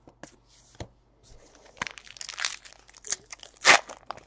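Baseball trading cards being shuffled and handled, card stock rustling and sliding against card stock in short scattered bursts, with the loudest rustle a little before the end.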